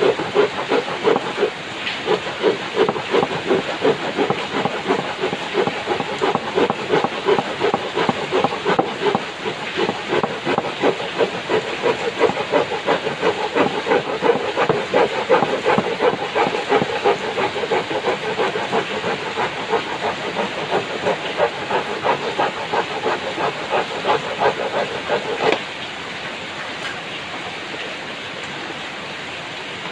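Hand saw cutting through a wooden board in quick, even back-and-forth strokes. The sawing stops suddenly near the end as the piece is cut off, leaving a steady hiss of rain.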